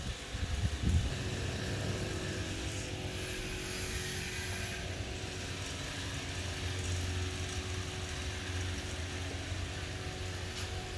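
Steady low rumble with a faint steady hum, like background machinery or a fan running, with a few low bumps in the first second.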